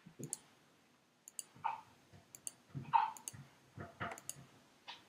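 Faint, irregular small clicks, about a dozen, several coming in close pairs, with a few soft thuds among them.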